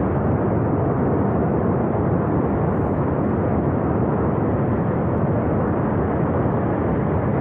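Steady rushing roar of a glacial flash flood, the torrent of water and debris pouring down the river valley.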